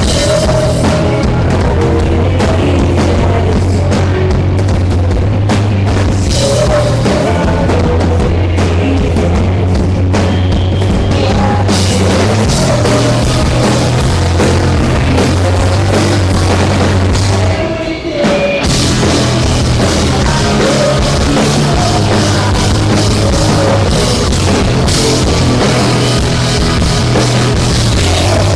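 Rock band playing loudly through a stage sound system at a sound check, with the drum kit prominent. The music drops out briefly about two-thirds of the way through, then comes back in.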